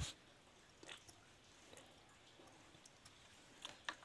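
Tomato ketchup squeezed from a plastic squeeze bottle onto macaroni stuffing: mostly near silence with a soft knock at the start, a faint tick about a second in and a few small clicks and squelches near the end.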